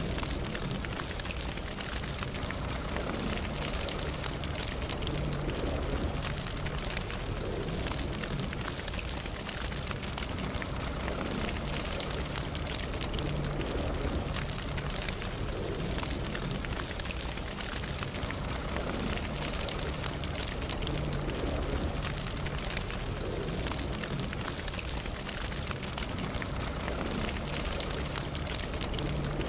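Campfire burning steadily, its wood crackling with many small pops over a low rumble of flame.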